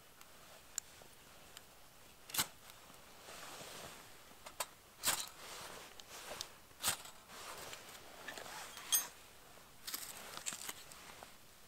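Half a dozen short, sharp scrapes a second or two apart: a ferro rod struck with a steel edge to throw sparks and light tinder in a small folding metal firebox stove.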